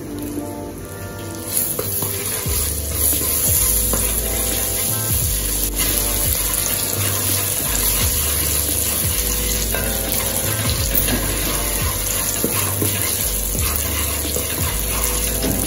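Curry powder and scallion frying in hot oil in an aluminium pot, a steady sizzle with a wooden spoon stirring through it; the sizzle gets louder about a second and a half in. This is the curry being toasted in the oil before the meat is added. Background music plays underneath.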